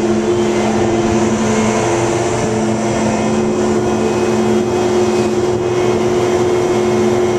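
River ferry's engine running steadily under way, a constant drone with a couple of steady pitches, under a steady rush of wind and water.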